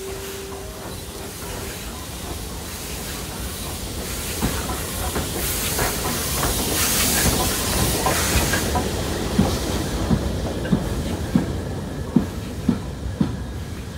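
BR Standard Class 4 2-6-0 steam locomotive 76084 passing with its train, its steam hiss loudest in the middle. This is followed by the coaches' wheels clicking over rail joints about one and a half times a second.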